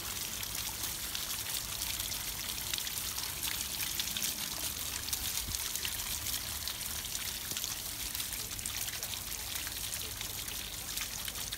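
Garden fountain shaped as an elephant statue, water spouting from its raised trunk and splashing back down over the statue and onto the pebbles beneath: a steady hiss of falling water with fine crackling splashes.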